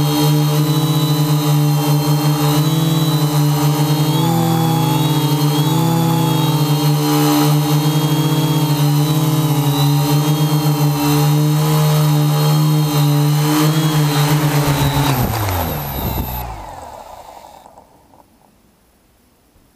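Quadcopter's electric motors and propellers humming steadily, heard from the onboard camera, the pitch wavering as the throttle is adjusted in the hover. About fifteen seconds in the motors wind down, the pitch sliding down and the sound fading away as the craft lands and stops.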